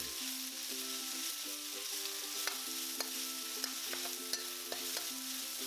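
Chicken pieces sizzling in hot oil in a well-seasoned wok as they are stir-fried. A metal spatula scrapes and clicks against the pan now and then.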